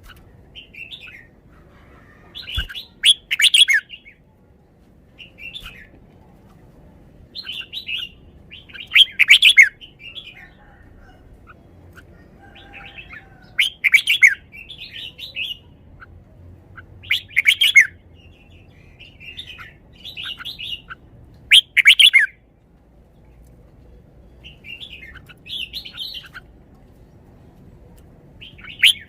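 Red-whiskered bulbul singing: short, loud song phrases repeated every few seconds, with softer chirping phrases between them.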